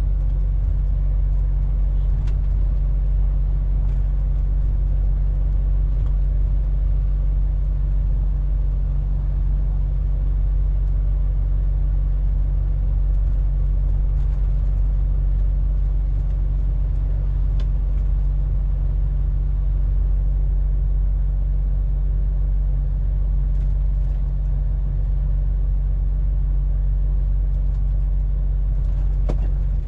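Cab interior sound of a MAN TGX 470 truck driving steadily on a town street: the even low drone of its 12.4-litre straight-six diesel engine under light load, with road rumble.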